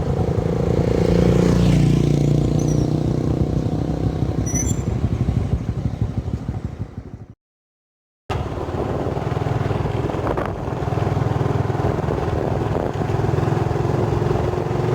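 A vehicle engine running steadily. It fades away a little past the middle, cuts out completely for about a second, then comes back at the same level.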